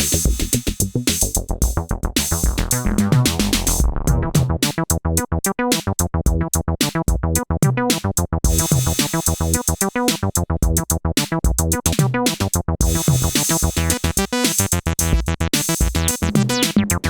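Analog-style synthesizer bass line playing fast repeated sequenced notes with a sweeping resonant filter, over a drum machine beat.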